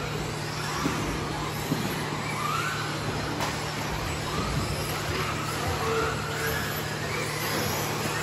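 Several 1/10-scale electric RC off-road buggies racing, their motors whining in overlapping tones that rise and fall in pitch as they accelerate and brake.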